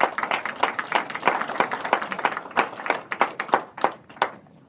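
Audience applauding, the claps thinning out to a few scattered ones and stopping about four seconds in.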